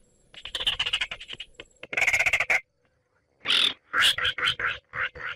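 Baillon's crake calling. A quick run of clicking pulses leads into a dense rattle about two seconds in, then comes a short pause and a rapid series of separate notes.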